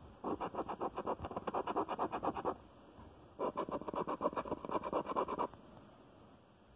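A coin scraping the coating off a lottery scratch-off ticket in two spells of rapid back-and-forth strokes, each about two seconds long, with a pause between them.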